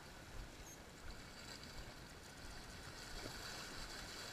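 Small waves washing against a rocky shoreline, a soft steady wash that swells slightly near the end.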